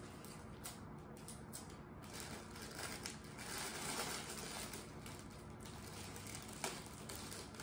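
Clear cellophane gift wrap crinkling faintly as it is gathered and folded by hand around the base of a gift basket.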